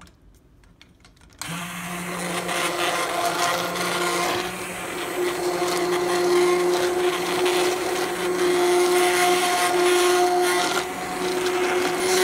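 Handheld immersion blender switched on about a second in, its motor running steadily as the blade churns and purées broth with cooked garlic, onions and lemon peel in a stainless steel pot.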